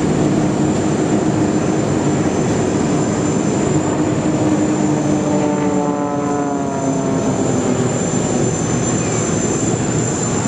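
Propeller-driven aerobatic planes flying in formation overhead, their piston engines droning steadily under a broad rushing noise. About midway the engine note glides down in pitch for a couple of seconds.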